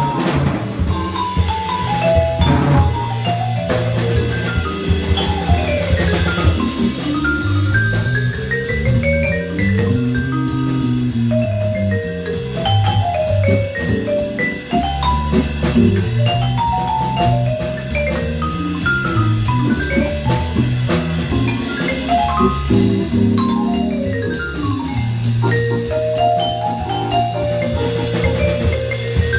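Vibraphone played with mallets in quick runs of notes that climb and fall, over a drum kit and a low bass part.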